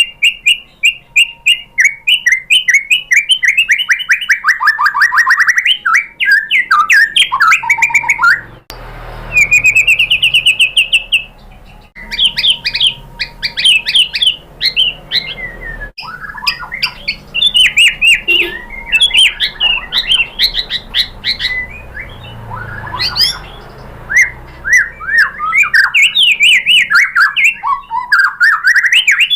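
White-rumped shama (murai batu) singing a fast, varied song: rapid trills, chattering runs and sliding whistled notes follow one another with hardly a pause. About nine seconds in comes a quick rising series of notes, and the song breaks off abruptly a few times.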